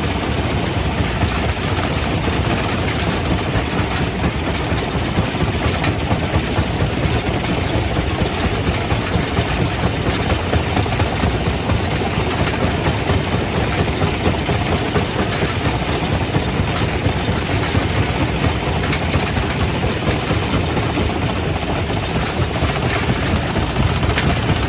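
Quarry primary rock crusher running, a loud, steady rumble with dense rattling of stone being crushed.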